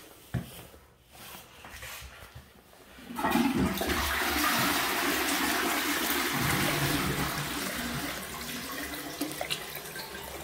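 A mixer tap starts running about three seconds in, water splashing steadily into a small ceramic washbasin and over hands being rinsed under it.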